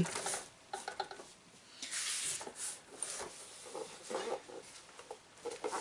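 Handling noise as a Traxxas UDR RC truck is picked up off a table and moved around: scattered light taps and clicks, with a longer rustle about two seconds in.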